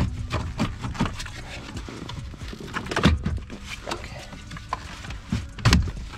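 Plastic clicks and knocks from a 2003 Ford F-150's GEM module and fuse panel as they are wiggled loose and worked down from under the dash. The knocks are irregular, with a louder one about three seconds in and another near the end.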